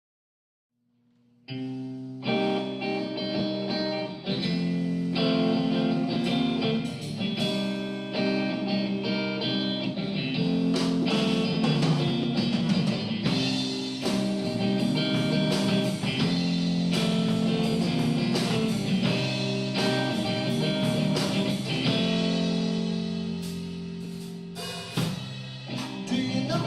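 Instrumental song intro: guitar with a drum kit, in a blues-rock style. It starts suddenly about a second and a half in, after silence.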